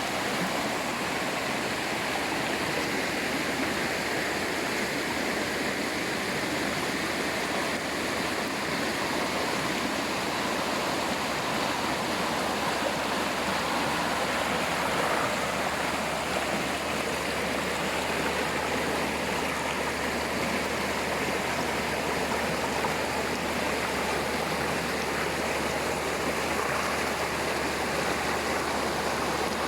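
Waterfall and stream water rushing steadily over rocks.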